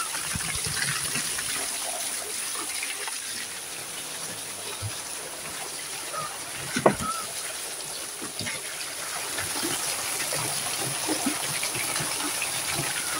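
Water pouring from a hose and splashing into a large metal basin as a skinned goat carcass is scrubbed by hand. A single sharp knock about seven seconds in.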